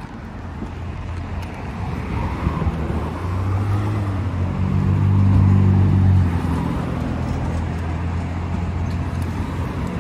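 A car engine running with a steady low hum that swells louder for a couple of seconds in the middle, over street traffic noise.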